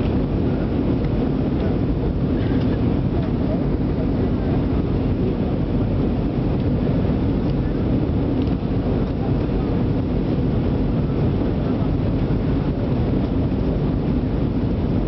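Steady cabin noise inside an Airbus A318 airliner descending toward landing: the jet engines and the airflow past the fuselage make an even, deep rumble that holds constant throughout.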